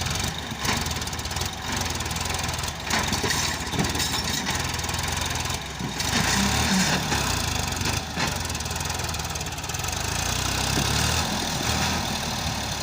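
Diesel engines of a backhoe loader and tractors running at a worksite, the engine sound swelling for a couple of seconds around the middle, with several short, sharp clacks.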